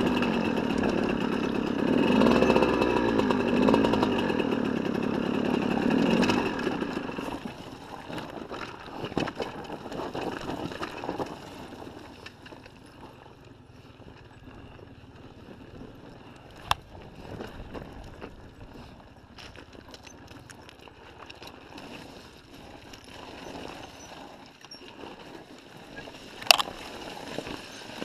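Honda CR125 two-stroke single-cylinder engine revving and changing pitch for about the first seven seconds, then running much quieter as the bike rolls over rocky ground. Two sharp knocks come through, one past halfway and a louder one near the end.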